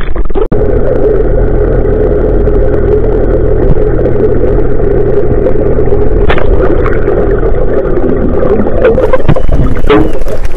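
Muffled underwater sound from a submerged camera: a loud rumble with a steady low motor hum carried through the water, the hum fading about three-quarters of the way through. A few sharp knocks come in the middle and near the end.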